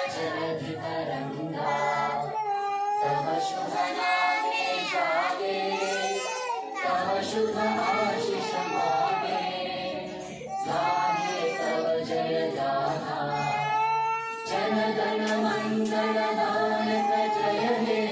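A group of young children singing together in unison with a woman's voice among them, a national song sung while they stand at the salute.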